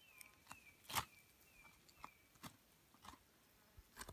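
Faint knife work on a deer carcass as a hunting knife cuts the backstrap away from the backbone: a few soft clicks and scrapes, the sharpest about a second in. Under it, a faint high chirp repeats several times a second and stops a little after two seconds.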